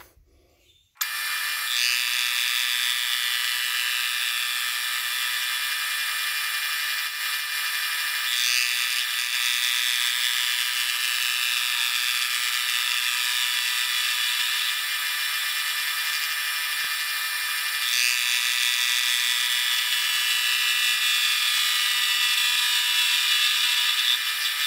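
Metal lathe running steadily with a high gear whine as its four-jaw chuck spins a block, starting about a second in. A few times the pitch slides briefly.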